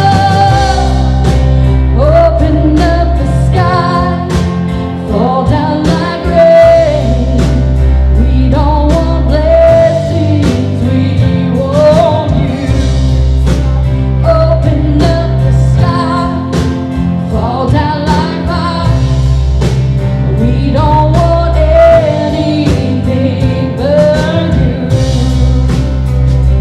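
Live church worship band playing a contemporary Christian song, with a vocalist singing over the band.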